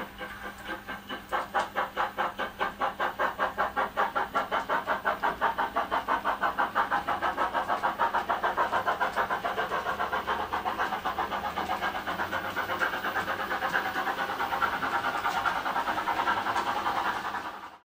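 LMS Class 8F steam locomotive sound from a model railway DCC sound decoder, played through the model's small speaker: exhaust chuffs that start slowly and pick up into a quick, even beat of about four or five a second as the locomotive accelerates.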